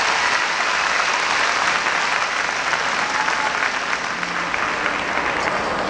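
Crowd applauding, dense and steady, easing off slightly toward the end.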